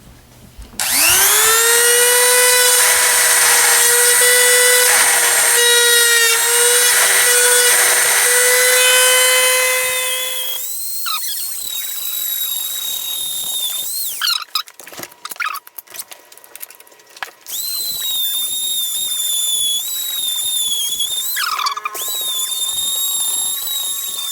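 An electric power tool cutting to enlarge the lock opening for the deadbolt: its motor spins up about a second in and runs with a steady whine for about ten seconds, then stops. After a few knocks and clatter it runs again with a higher, wavering whine near the end.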